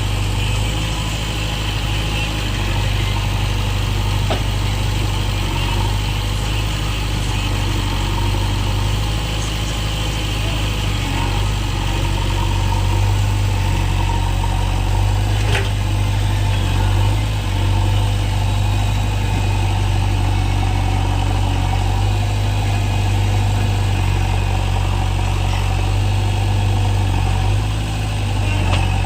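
JCB backhoe loader's diesel engine running steadily, with a couple of faint clicks.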